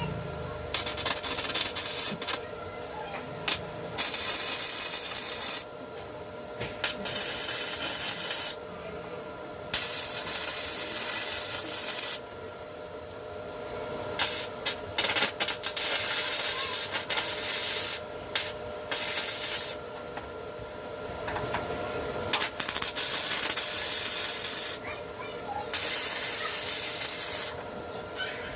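Abrasive rubbing on the bodywork metal, as in hand sanding or filing, in hissing strokes of one to three seconds with short pauses between them, over a steady faint hum.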